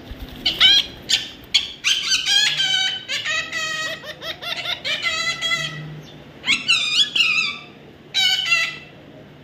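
Parrot calling in a run of high-pitched chattering bursts, several in quick succession with short breaks between.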